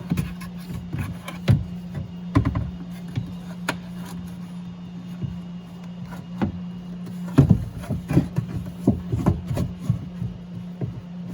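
Irregular clicks, knocks and scrapes of a door latch and lock actuator assembly being twisted and flipped into position inside a 2013 BMW 320xi's door shell, coming thick and fast from about seven seconds in. A steady low hum runs underneath.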